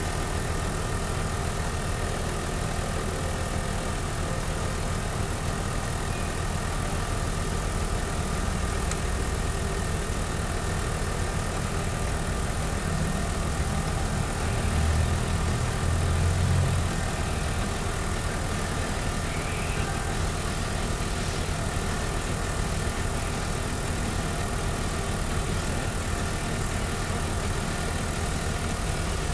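Airford 12 V portable tyre compressor running steadily with a fast, even pulsing, pumping air into a car tyre through its hose. It grows a little louder and deeper for a couple of seconds midway.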